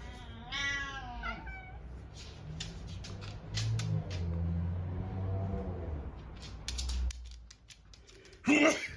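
Domestic cat meowing: one drawn-out meow that bends in pitch about half a second in. Scattered light clicks and low tones follow through the middle, then a loud short sound near the end.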